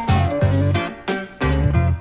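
Background music: guitar over a bass line with a steady beat.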